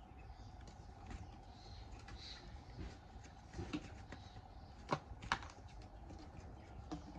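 Irregular light taps and clicks, typical of hand tool work, with two sharper knocks a little past the middle. A faint steady hum runs underneath.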